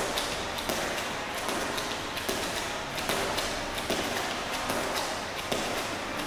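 Feet repeatedly tapping and landing on a gym floor during knee skips, a run of quick light thuds.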